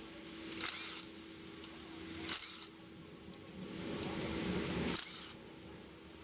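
Ratchet wrench clicking in three short bursts, about every two seconds, as bolts are worked on the transmission oil pan, over a steady faint hum.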